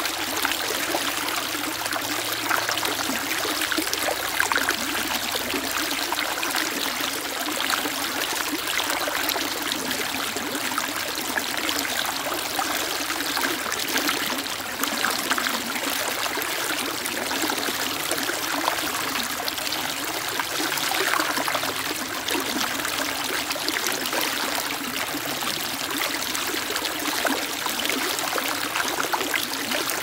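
Shallow stream running over and around rocks: a steady, splashing rush of water with little deep rumble.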